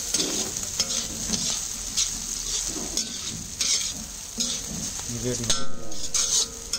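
A metal spatula stirring and scraping biryani rice around a large black kadai, with repeated scrapes and short ringing clanks of metal on the pan, over sizzling from the still-hot pan.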